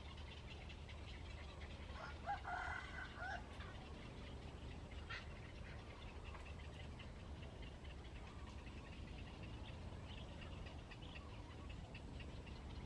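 A bird call lasting about a second and a half, a couple of seconds in, over a steady low rumble.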